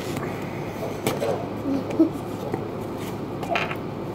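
A kitchen knife cutting through a lemon on a plate: a few short clicks and taps as the blade works through the fruit, the sharpest about two seconds in.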